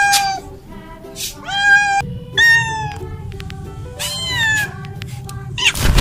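Domestic cat meowing repeatedly: about four drawn-out meows, each rising and then levelling off or falling away. A loud burst of noise comes just before the end.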